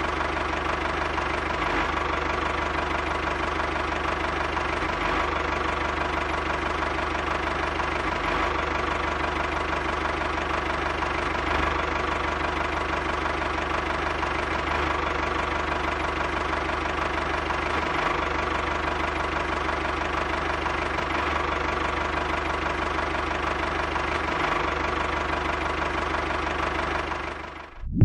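Tractor engine running steadily at an even chugging idle, fading out just before the end.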